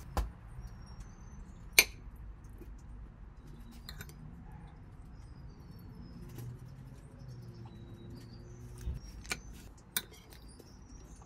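A few sharp clinks of a metal spoon against a ceramic plate as it scoops into fried rice, the loudest about two seconds in.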